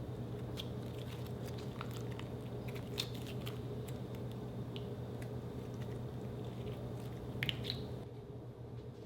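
Slime being squished and worked, with scattered small sticky clicks and pops, a sharper cluster of them about seven seconds in.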